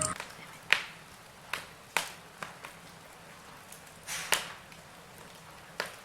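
Logs burning in a fireplace, crackling with about half a dozen sharp, irregular pops and snaps, two close together about four seconds in.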